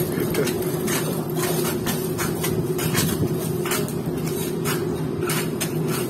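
Long-poled metal scrapers scraping barnacles off a boat's hull: a string of short, irregular scraping strokes and knocks over a steady low hum.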